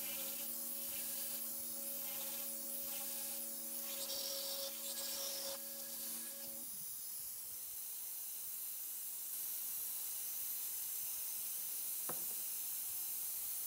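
CNC router running while it cuts a hole in a plastic case: a steady high hiss, and under it a low hum of a few steady tones that stops about seven seconds in. A single click near the end.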